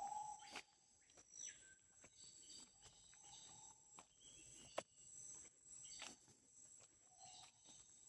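Amazon rainforest ambience, faint: a steady high-pitched insect drone, with several short whistled bird calls (one falling sharply in pitch about a second and a half in) and scattered sharp clicks.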